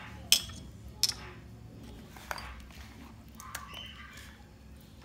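Pieces of milkfish being handled and laid into marinade in a plastic tray: two sharp knocks about a third of a second and a second in, then a few softer clicks.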